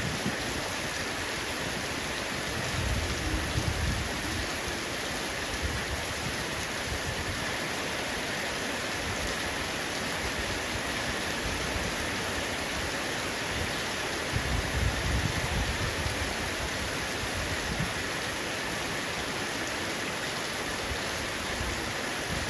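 Heavy rain falling steadily on a roof, an even hiss of many drops, with low rumbling swells about three seconds in and again about fifteen seconds in.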